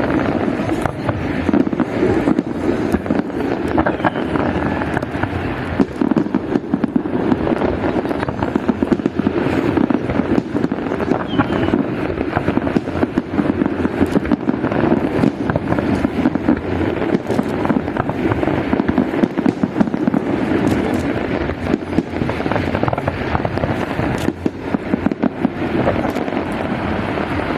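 Fireworks salute: a dense, continuous run of bangs and crackles, many reports a second.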